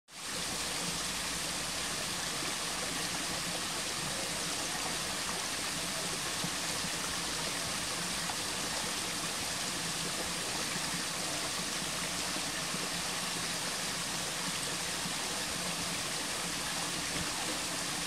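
A small waterfall and a shallow stream cascade splashing over rocks: a steady, even rush of running water that fades in at the very start.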